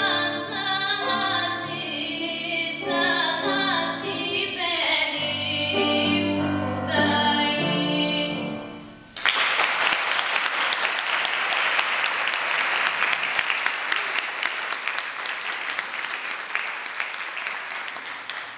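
A woman singing a Strandzha folk song with grand piano accompaniment, ending about halfway through. Audience applause then breaks out suddenly and carries on, fading out at the very end.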